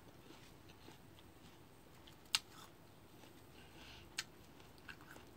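Chewing crisp fruit with the mouth closed: a few sharp crunches, one about two seconds in, another about four seconds in and two small ones near the end, over quiet room tone.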